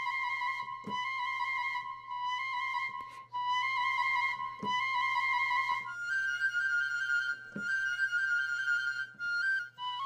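Sampled piccolo from the Spitfire Symphonic Woodwinds library playing sustained trills: a minor-second trill held for about six seconds, then a higher major-second trill.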